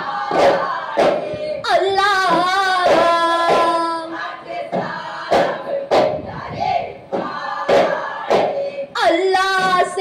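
Daff muttu: a chorus of boys singing with strokes on daf frame drums. The sung line comes in about two seconds in and again near the end, and the drum strokes fall in the gaps between.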